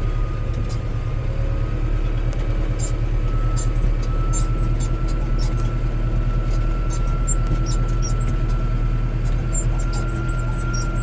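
Massey Ferguson 5455 tractor's diesel engine running steadily under load, with a thin whine that creeps slowly up in pitch and scattered light clicks and rattles.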